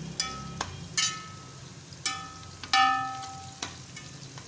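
A stirring utensil knocking against a metal cooking pot about six times, each knock ringing briefly with a clear tone, over a faint sizzle of bitter gourd slices frying in ghee.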